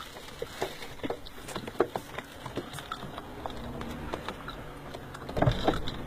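Light, irregular tapping and pattering of pigeons' feet and beaks on a car's hood and windshield, heard from inside the car. A louder bump comes near the end.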